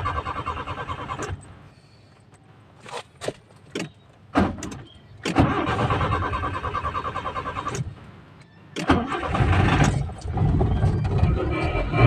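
Nissan Sentra GA13 1.3-litre four-cylinder engine being cranked by the starter twice without firing, with a few sharp clicks between the attempts. About nine seconds in it catches and runs unevenly. This is a hard start, the fault the car has.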